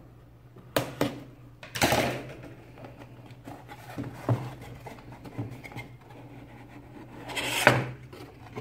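Scissors snipping through the small seal on a cardboard graphics-card box, a couple of sharp snips about a second in, followed by cardboard scraping. Then light handling knocks, and near the end a louder cardboard rustle as the box lid is lifted open.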